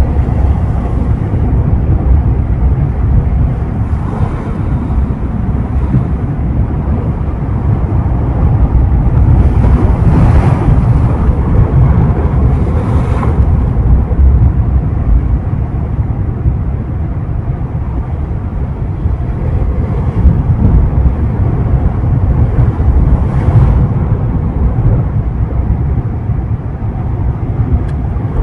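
Ocean surf breaking and washing on the shore, a steady rushing noise with a heavy low rumble from wind on the microphone. A louder wash swells up about a third of the way through and again about three-quarters in.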